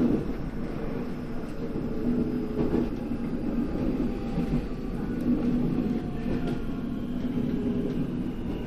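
Running noise of a JR Central 313 series electric train heard from its cab: a steady rumble of wheels on rail with a few brief clicks over rail joints and a faint whine above, as the train runs into a station.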